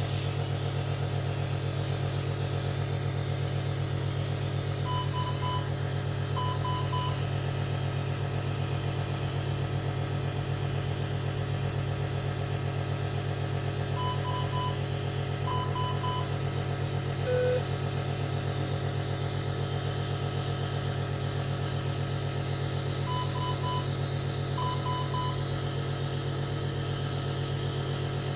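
Steady low hum of a nebulizer's compressor running, with a medical monitor's alarm sounding over it: two quick sets of three high beeps about every nine seconds, and one lower single beep about two-thirds of the way through.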